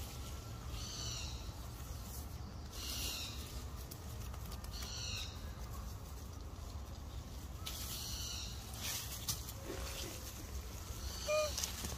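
A bird giving a short, arched, high call over and over, about once every two seconds, with a lower single call near the end, over a steady low rumble.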